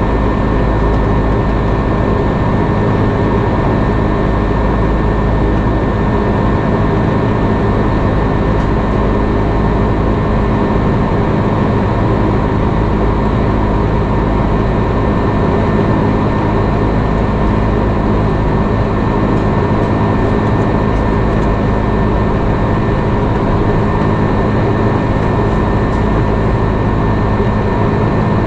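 Steady cabin noise of an Airbus A330-300 in flight: a constant drone of jet engines and rushing air, with a few faint steady tones running through it.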